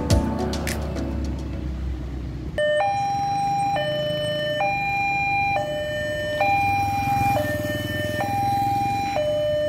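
Electronic two-tone warning alarm of a LEN railway level crossing, switching back and forth between a lower and a higher tone about once a second, starting about two and a half seconds in as the crossing barriers come down. It warns road traffic that a train is approaching.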